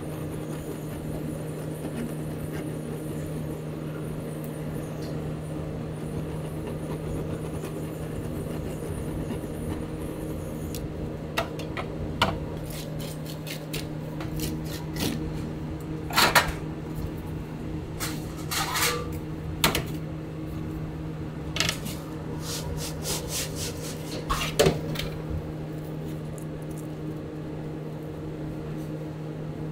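Kitchen clatter: scattered sharp metallic clinks of pans and utensils being handled, loudest in the middle of the stretch, over a steady low hum of kitchen equipment.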